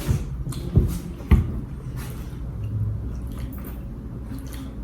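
Eating sounds at a table: faint wet chewing over a low steady hum, with two sharp knocks about a second in, the loudest sounds, and a few fainter clicks.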